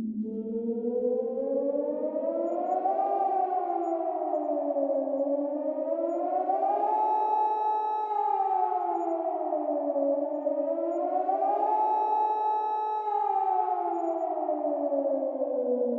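Nuclear attack warning siren wailing: its pitch climbs and falls slowly, about once every five seconds, holding briefly at the top of the second and third climbs.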